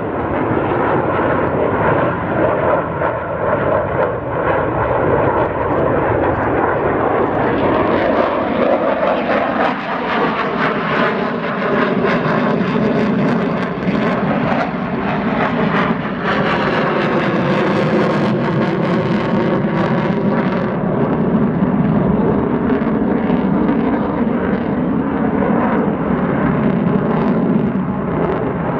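F-16 Fighting Falcon's jet engine running at high power, its afterburner lit, during a low display pass: a loud continuous roar whose tone sweeps up and down as the jet passes. It is harshest a little past the middle, then eases.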